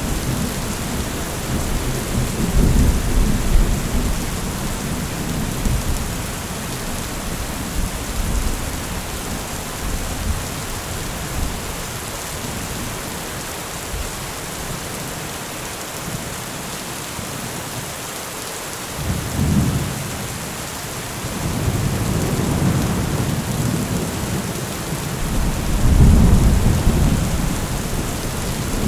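Heavy rain falling steadily, with low rolls of thunder rumbling over it: one fading in the first few seconds, more about two-thirds of the way through, and the loudest near the end.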